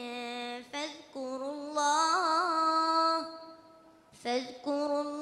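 A twelve-year-old boy's voice reciting the Quran in melodic tajweed style, drawing out long held notes with wavering melismatic ornaments. The voice breaks off for a breath a little before four seconds in, then resumes.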